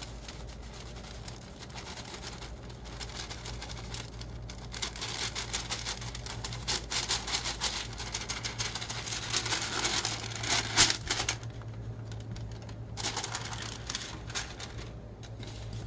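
Parchment paper rustling and crinkling as it is handled, with a rapid patter of loose glitter sliding and ticking off it. The patter comes in two dense spells, a long one from about four seconds in and a shorter one near the end, over a steady low hum.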